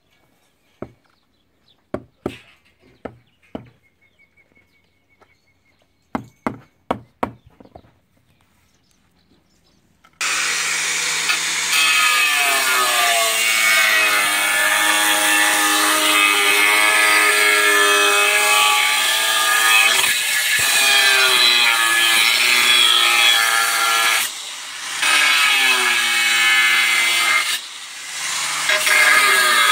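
A few sharp taps, then about ten seconds in a loud power saw starts cutting, its pitch wavering under load, with two brief drops near the end.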